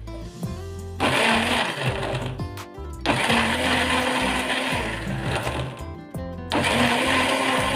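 Electric countertop blender run in three bursts, its motor spinning up each time as it purees chunks of fruit and water into juice.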